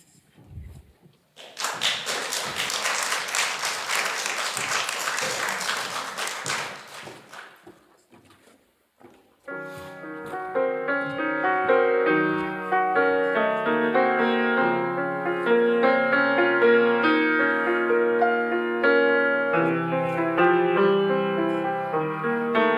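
Audience applause for about five seconds, fading away. After a short pause a piano starts playing chords and melody, the introduction to the next song.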